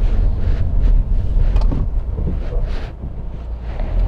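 Car cabin noise while driving on a wet road: a steady low rumble of engine and tyres with road hiss, and brief swishes now and then.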